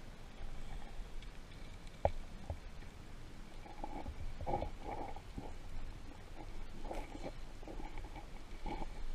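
Muffled underwater sound heard through a camera's waterproof housing as a diver moves through a rock crevice: low gurgling and soft bumps of water and movement, with one sharp click about two seconds in.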